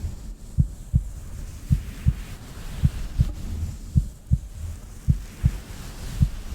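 Slow heartbeat: six double lub-dub beats, a little over a second apart (about 55 a minute), over a low steady rumble.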